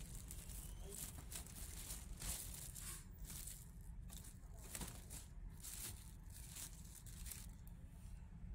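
Clear plastic wrapping bag crinkling and rustling in irregular snatches as hands pull it back from a new printer.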